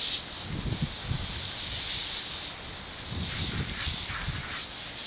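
Garden hose spray nozzle hissing steadily as water is sprayed onto a horse's coat, with a few low thumps underneath about half a second in and again around three seconds in.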